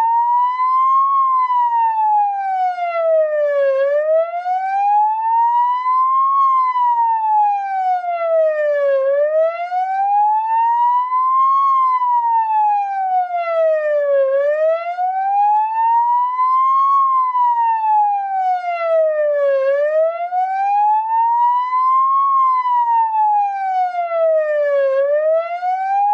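Speaker test signal: a single steady tone with overtones gliding slowly up and down like a slow siren, about five seconds to each rise and fall, cutting off abruptly at the end. It is the 'turn around' part of a left–right–center speaker test, where the sound is panned around the speakers.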